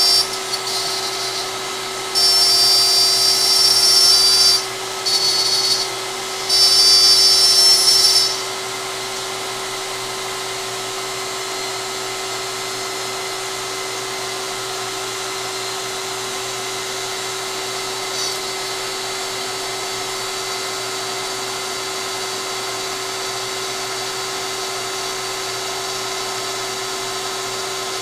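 DeWalt compact router spinning steadily on a LowRider CNC gantry during a cut, a constant motor whine. In the first eight seconds or so it gets louder and harsher several times, then it settles to an even whine.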